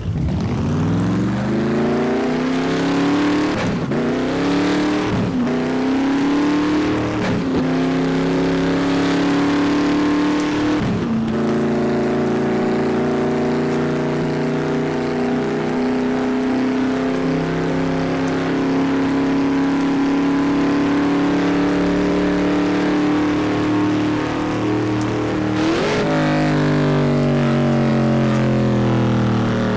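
A person's voice imitating a car engine revving: a sustained mouth-made engine drone whose pitch climbs slowly, broken several times by quick downward-and-up swoops like gear changes.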